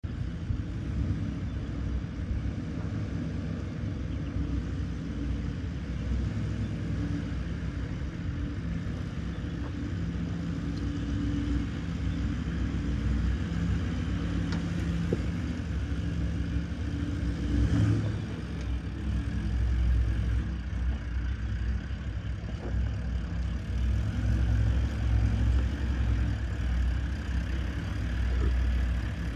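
Toyota LandCruiser 79 Series engine running at low revs as the truck crawls over a rocky dirt track, its low rumble rising and falling with the throttle.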